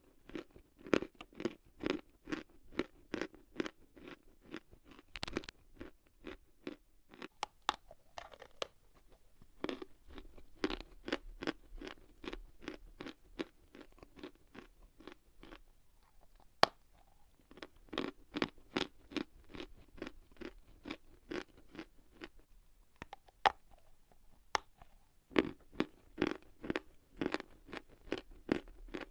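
Close-up chewing of dry edible chalk: crisp crunches about three a second in runs, broken by short pauses, with a few sharp single cracks in the gaps.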